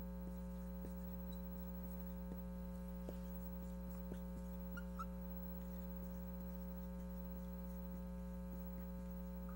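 Steady electrical mains hum, with a few faint taps and brief squeaks of a marker writing on a whiteboard.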